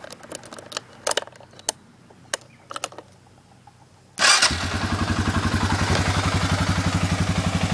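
Keys jangling and clicking at the ignition switch of a Suzuki QuadRunner 500 4x4 ATV. About four seconds in, its single-cylinder four-stroke engine fires at once and settles into a steady idle with an even, rapid pulse, starting right up.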